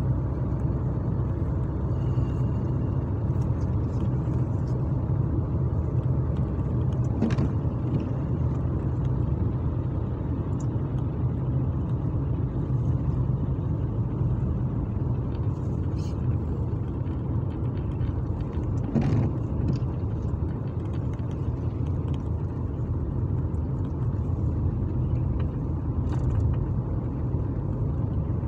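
Steady low rumble of a car's engine and tyres on a wet road, heard from inside the moving car's cabin.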